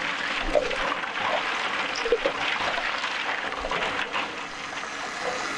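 Metal spoon stirring and sloshing mashed falsa berries, water and ice in a large steel bowl, with a few short clinks and splashes along the way.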